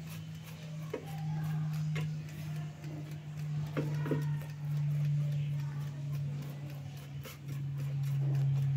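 A steady low hum throughout, with a few light clicks and taps as a silicone pastry brush dabs ghee onto raw gujiya in a nonstick air fryer basket.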